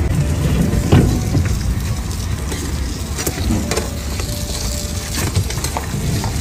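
Meat-filled flatbreads sizzling in oil on a hot iron griddle, a steady frying hiss, with a few sharp clicks of metal tongs as the breads are placed and turned; the loudest click comes about a second in.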